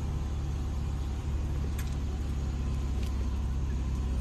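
Land Rover Discovery 4 engine running under load in a steady low drone as the SUV crawls up a steep dirt slope, with a few faint clicks over it.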